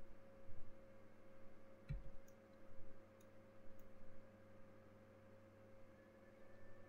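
Low steady electrical hum with a few faint clicks and a soft thump about two seconds in.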